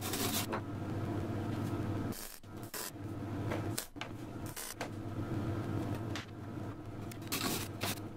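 Several short bursts of harsh, scratchy noise over a steady low hum, from work on a cast iron window frame on a steel welding bench.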